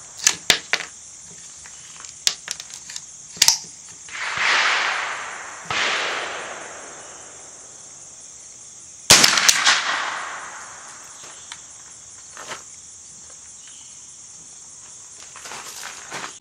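Smith & Wesson M&P 15-22 .22 rimfire rifle firing, its bolt cycling, in irregular sharp reports: three quick ones at the start, one a few seconds in, and a tight group of several about nine seconds in. The rifle is having failures to eject. Longer swells of noise rise and fade between the shots.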